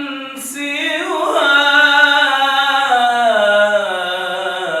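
A male voice singing an Arabic religious nasheed a cappella, drawing out one long ornamented phrase that slides slowly downward in pitch over the second half.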